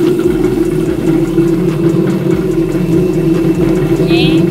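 Electric potato peeling machine running with a steady, loud hum. A brief high chirp comes near the end.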